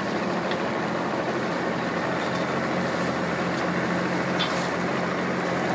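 An engine idling with a steady low hum under a general outdoor noise haze.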